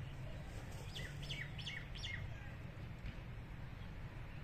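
A small bird chirping four quick, high notes in a row about a second in, over a steady low rumble.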